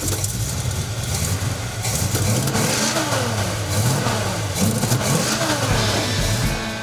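1969 AMC SC/Rambler's 390 V8 idling, then given a few throttle blips between about two and five seconds in, its revs rising and falling. Stepping on the gas opens the vacuum-worked flap in the hood scoop that feeds air down into the carburetor.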